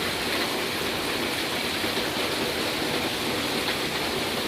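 Rain falling steadily, with water running fast, a constant rushing noise.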